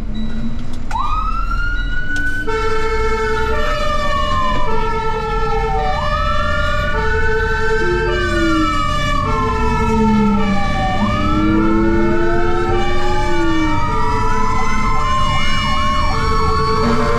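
Fire engine sirens: a wail that rises and falls slowly, overlapping a two-tone hi-lo siren alternating between two pitches, with a fast yelp of rapid sweeps a little before the end, over a steady low engine rumble.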